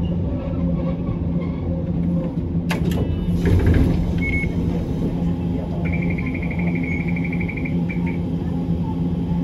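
Hiroshima Electric Railway 1900-series tram, an ex-Kyoto city tram, heard from on board: a steady low rumble with a constant hum. A sharp click comes about three seconds in, and a rapid high ringing lasts nearly two seconds a little past the middle.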